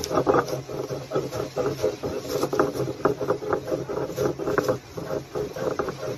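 Stone roller rubbed back and forth over seeds on a flat grinding stone, a rough stone-on-stone grating full of small crackles as the seeds are crushed.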